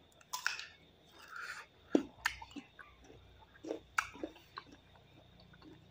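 Two people biting into and chewing slices of mango, heard as scattered short crunches and wet mouth sounds, the sharpest about two and four seconds in.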